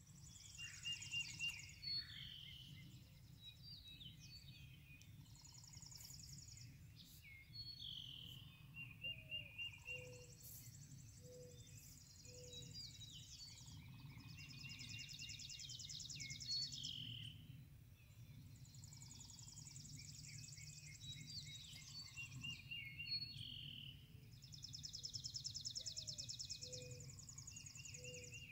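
Birds singing at dawn: a high, fast trill repeats every few seconds among other chirping songs, and a short run of low hooting notes comes twice, over a faint steady low rumble.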